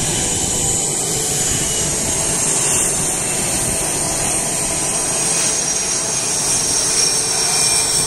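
CF-18 Hornet fighter jets taxiing, their twin jet engines giving a steady loud high-pitched whine over a rushing roar, a little louder near the end as one passes close.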